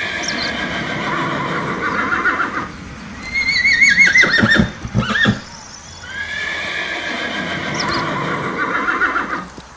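Horse neighing three times, each call several seconds long. The middle whinny is higher and quavers as it falls in pitch.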